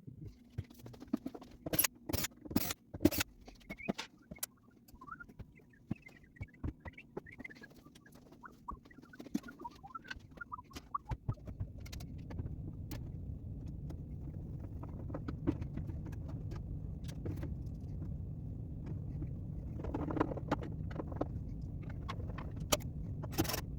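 Knocks, clicks and clatter of a wooden panel and its screws being handled and fitted into a pinball machine's head cabinet, loudest in the first few seconds. About eleven seconds in, a steady low hum starts and carries on under the scattered knocks.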